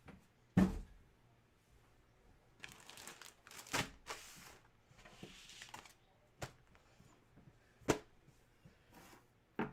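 Cards and packaging being handled: rustling and tearing, with a knock about half a second in and a few sharp clicks later.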